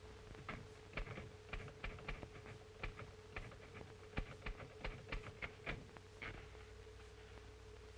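Manual typewriter typing: an irregular run of key strikes that begins about half a second in and stops a little after six seconds, over a steady hum.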